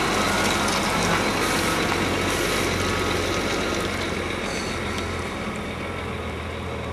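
Heavy lorry's diesel engine running at idle: a steady low drone with a broad rumble over it, slowly getting quieter.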